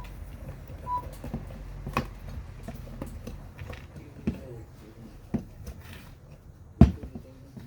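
Scattered clicks and knocks of hands and tools working on an electric scooter wheel, with one sharp loud knock near the end. Two short beeps about a second apart come right at the start.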